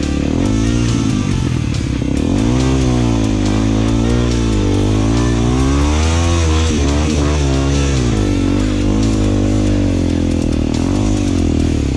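Single-cylinder four-stroke trail motorcycle riding off-road, the engine pitch rising and falling again and again as the throttle opens and closes.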